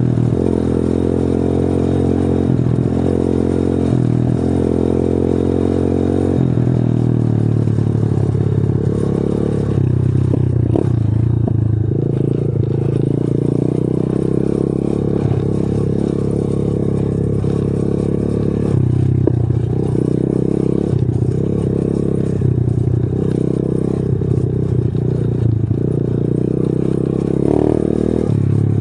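125 cc pit bike's single-cylinder four-stroke engine running under way, heard close from the rider's seat, the revs dipping and rising again several times as the throttle is eased and reopened.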